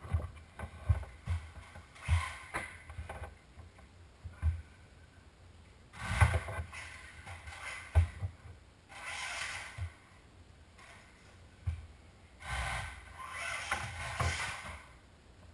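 Electric 1/16-scale Losi Mini 8ight RC buggy driven indoors: several short rushes of motor and tyre noise, with many knocks and thumps as it bumps and lands.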